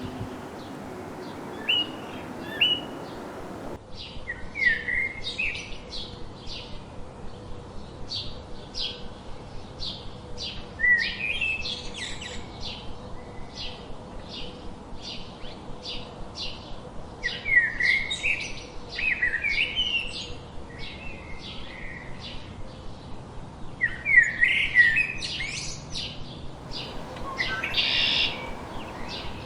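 Songbirds singing: a steady run of short, high chirps about two a second, with louder warbled phrases breaking in every few seconds. For the first four seconds a different recording plays, with only two short calls over a light background hiss.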